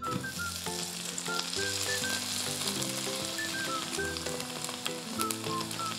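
Hot olive oil sizzling steadily around a spiralized-potato pancake frying in a skillet.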